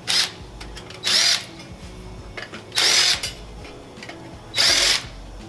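Cordless drill driver run in four short trigger bursts, its motor whining up and back down each time, backing screws out of an AC evaporator coil's sheet-metal casing.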